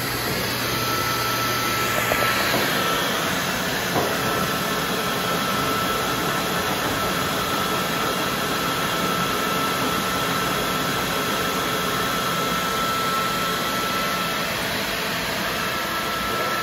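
AC Horn Bauer 322 dry nut roaster running, with a steady rush of air from its blower and a thin steady whine on top.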